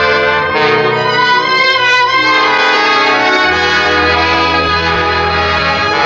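Orchestral theme music for a 1940s radio drama, brass to the fore, with sustained chords that shift a few times over a low bass line.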